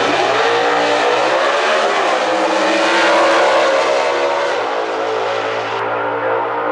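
Two Hemi-powered Super Stock drag cars launching off the line at full throttle and racing down the strip. The engine note climbs from the launch and rises and falls several times, then settles into a steadier tone as the cars pull away.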